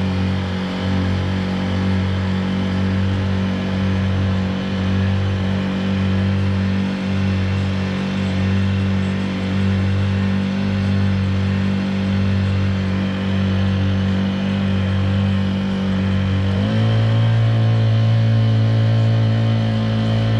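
Honda GX35 single-cylinder four-stroke engine on a kayak outboard leg running steadily under way, its note wavering slowly and evenly. About three-quarters of the way through, the throttle is opened and the engine picks up speed and runs a little louder.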